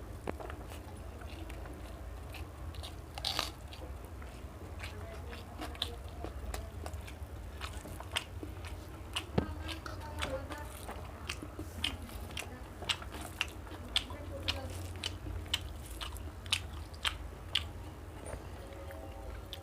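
Close-miked eating: a person chewing a meal of rice, dal and vegetables, with many short crisp crunches and clicks that come more often in the second half. A steady low hum runs beneath.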